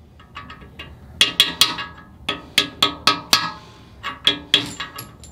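Hammer striking a swedging tool to stake a press-in oil galley plug into a cast-iron Ford FE engine block. A few light taps come first, then about a dozen sharp metallic blows in quick groups, each ringing briefly.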